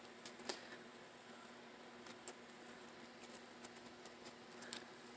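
Faint handling of a satin-ribbon rose in the fingers: soft rustles with a few short, sharp ticks, the loudest a little past two seconds in.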